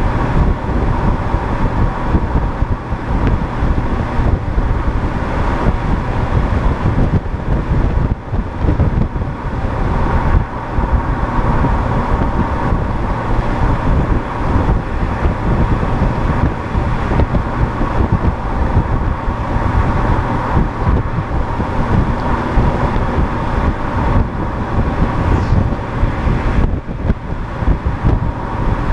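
Steady road and tyre noise of a vehicle driving at highway speed, with wind rushing over the microphone.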